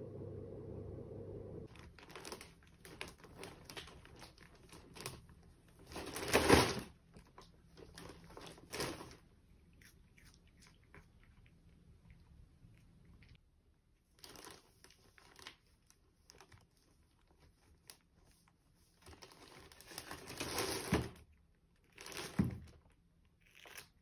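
Plastic shopping bag rustling and crinkling in irregular bursts as a cat noses into it and drags a cucumber out. The loudest rustles come about six seconds in and again around twenty to twenty-two seconds in.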